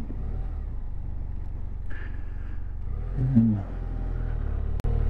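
BMW F700GS motorcycle's parallel-twin engine running steadily, a low drone. A short vocal sound comes about three seconds in, and a sharp click just before the end.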